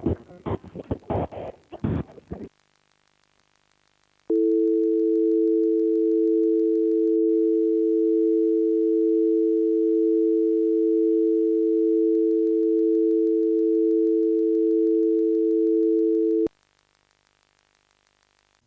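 A steady telephone dial tone, two tones held together, comes in about four seconds in, holds for about twelve seconds and cuts off sharply.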